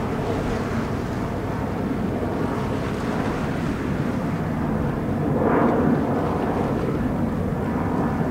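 Jet engines of a Boeing 767-300ER airliner at takeoff thrust: a steady rumble that swells briefly about five and a half seconds in.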